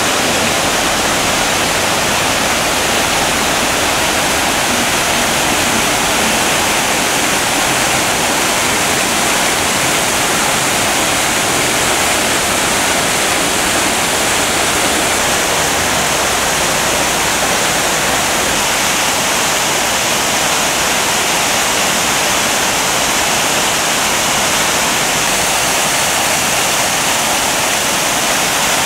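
City fountains running: vertical and arcing water jets and overflow cascades splashing into their pools in a loud, even rush of water.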